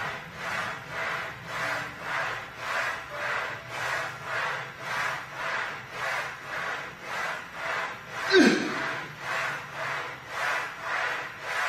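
Rhythmic rasping strokes, about two a second, from a set of Smith machine barbell rows. About eight seconds in, one short, louder sound falls in pitch.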